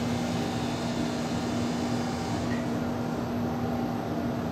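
Steady mechanical hum with a constant low tone over an even background noise, as from ventilation or an appliance running in the room.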